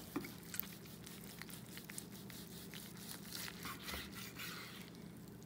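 A long knife sawing through smoked brisket on a wooden cutting board, with faint crackling clicks as the blade cuts through the crusty bark. A low steady hum runs underneath.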